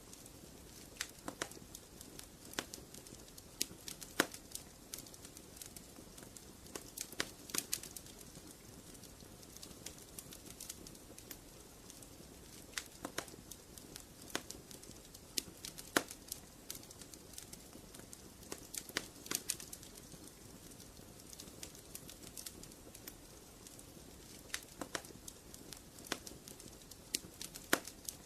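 Wood fire crackling in a fireplace: irregular sharp pops and snaps over a soft, steady hiss.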